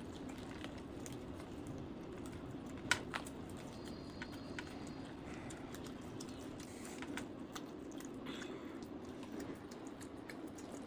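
Close-up eating sounds of roasted chicken being torn apart by hand and chewed: scattered small wet clicks and smacks, with one sharper click about three seconds in, over a steady low hum.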